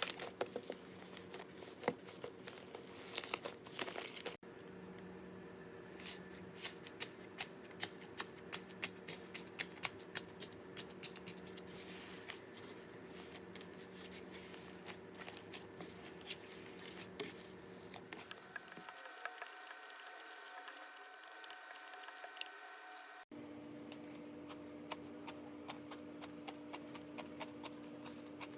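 Slime being handled, crackling with many small sharp clicks and pops, in three back-to-back clips with abrupt cuts about four seconds in and near the end.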